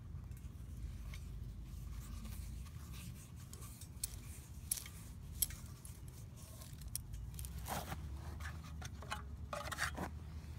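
Scattered clicks and scrapes of a wrench and small-engine parts being handled, with louder scraping about eight seconds in and again near the end, over a low rumble.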